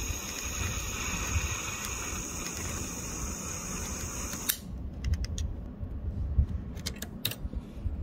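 Handheld butane torch burning with a steady hiss while it heats the soldered joint on a typewriter's escapement dog. About halfway through the flame is shut off suddenly, and a few light clicks and taps follow.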